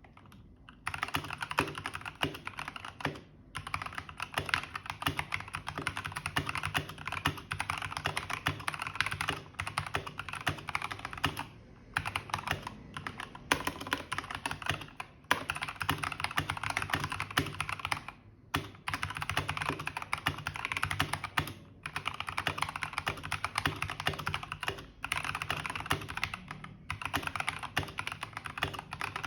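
Fast continuous typing on an E-Dra EK384W mechanical keyboard with Gateron Red linear switches: a dense stream of key clacks in runs of a few seconds, broken by brief pauses.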